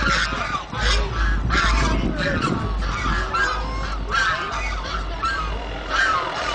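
A flock of domestic geese honking, many overlapping short calls repeating throughout, with a low rumble underneath during the first few seconds.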